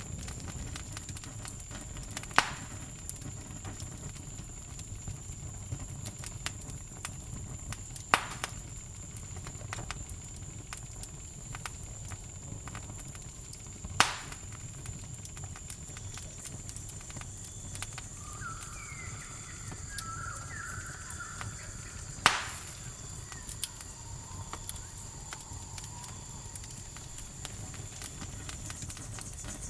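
Campfire crackling, with four loud sharp pops several seconds apart over a low steady rumble, under a steady high trill of crickets. A few short chirping calls come about two-thirds of the way through.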